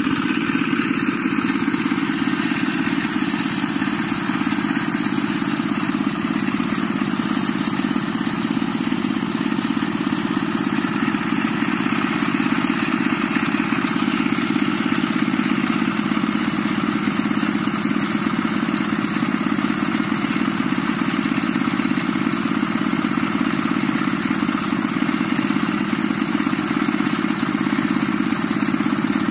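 Walking tractor's engine running steadily at an even speed, a continuous drone with no change in pitch or level.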